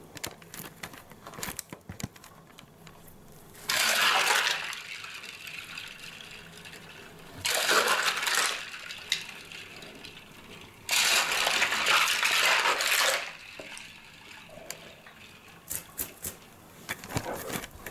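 Plastic keycaps from a BBC Master keyboard clicking and clattering against each other as hands swish them about in a sink of soapy water. Three louder stretches of sloshing water come about 4 s, 8 s and 11 s in.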